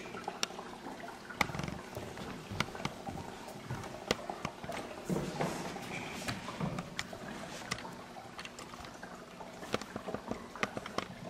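Scattered light clicks and taps over quiet room noise, with a few faint low murmurs; no music is heard.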